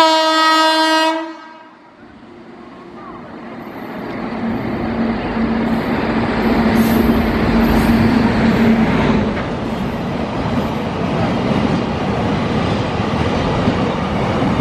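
WAG-9HC electric locomotive's horn gives one blast of just over a second. The locomotive then approaches and runs past at speed, its noise rising to a loud rush with a steady hum. It is followed by the continuous running noise of empty flatbed freight wagons rolling by.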